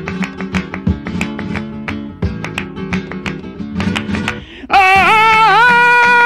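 Flamenco acoustic guitar strumming and picking quick notes. About three-quarters of the way in, a flamenco singer's voice cuts in suddenly and much louder, holding a long wavering note over the guitar.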